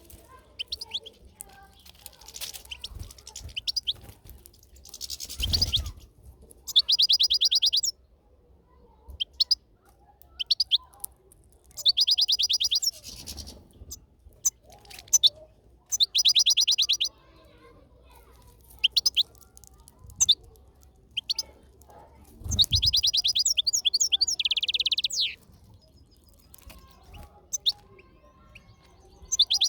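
European goldfinch singing: bouts of fast, high twittering trills broken up by single chirps, with short pauses between phrases. Two dull low thumps come in, about a fifth and three quarters of the way through.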